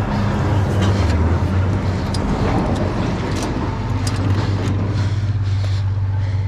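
Chain of a purple Hupi Naja bike being handled and worked back onto the sprocket after coming off, with light, scattered metallic clicks over a steady low rumble.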